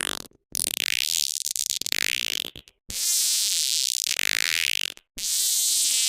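Cartoon sound effect: a buzzing, fluttering whir played three times in a row, each lasting about two seconds with short gaps between.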